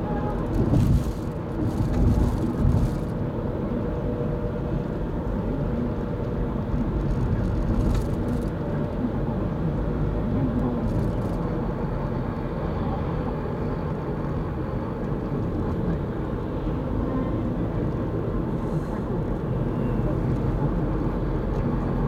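Car driving on a road: steady engine and tyre rumble, with a few brief knocks early on and again about eight seconds in.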